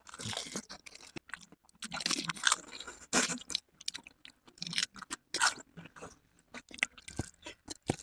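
Close-up crunching and chewing as dahi golgappe (crisp fried puri shells filled with yogurt) are bitten and eaten, in irregular bursts with short pauses between bites.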